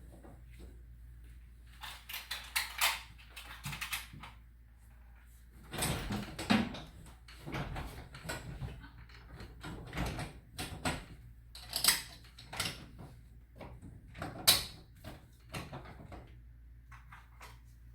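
Irregular clicks, clanks and knocks of garage-door hardware and tools being handled during a repair, with several sharper knocks spread through.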